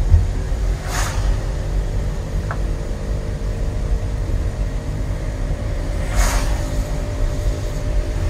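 A car driving steadily, with a constant low road rumble. Two brief swishes come about a second in and again past the middle.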